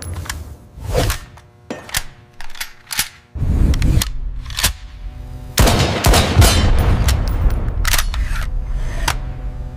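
Sound-effect rifle shots and the metallic clacks of a rifle's action cycling: several separate sharp shots, then a louder, denser stretch of noise from about halfway, over a steady music drone.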